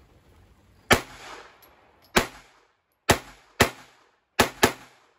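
Six pistol shots fired as three pairs, each pair quicker than the last: about a second and a quarter apart, then half a second, then a quarter second. This is a 'slow to fast, small to large' drill.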